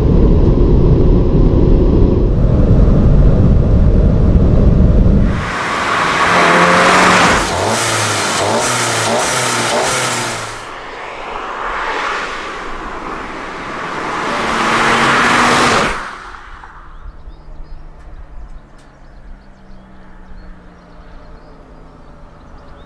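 SEAT Leon Cupra ST 280's turbocharged 2.0-litre four-cylinder engine accelerating hard, heard from inside the cabin. About five seconds in, the same car is heard from outside, running hard and loud towards and past the microphone. It fades out about sixteen seconds in, leaving a quiet low-speed engine hum.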